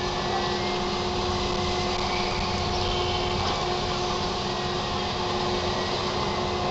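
Steady mechanical hum of a swinging-arm thrill ride's drive machinery running as its arms rotate the rider gondola, with a few steady tones over a wash of noise.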